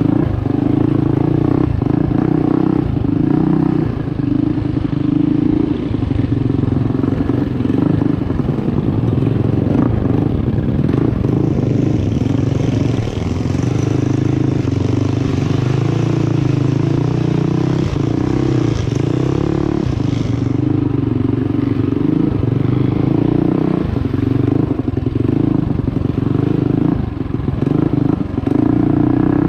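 Mini bike's small single-cylinder engine running under load on a rough trail, its pitch rising and falling with the throttle. From about a third of the way in, a hiss of water splashing runs for several seconds as the bike rides through a shallow creek.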